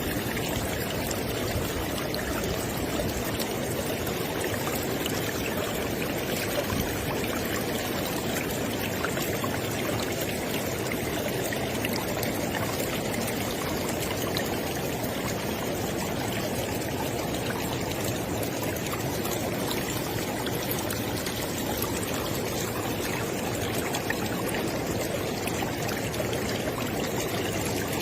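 River water flowing: a steady, unbroken rush of water, fuller in the low and middle range than in the highs.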